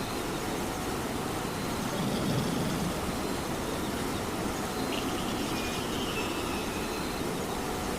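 Steady rain with a cat snoring in slow breaths, a low snore swelling about two seconds in and a thin whistling breath a few seconds later.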